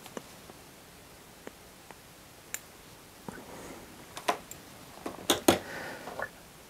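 Light handling noises at a fly-tying bench as strands of flash material are pulled from their pack: a few faint ticks, then a cluster of sharper clicks and rustling in the last couple of seconds.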